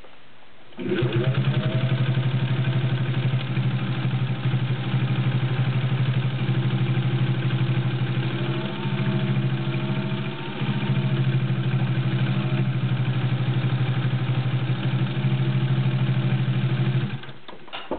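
Singer 201-2 sewing machine running on its potted motor, stitching through six layers of denim with a size 18 needle: a steady motor hum over a fast, even needle rhythm. It starts about a second in, eases briefly a few times, and stops shortly before the end.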